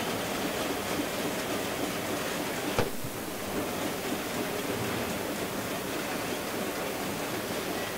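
Steady rushing noise of a street clash with large fires burning, broken by one sharp bang a little under three seconds in.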